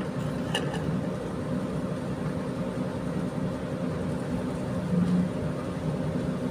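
A Kato crane's diesel engine idling with a steady drone.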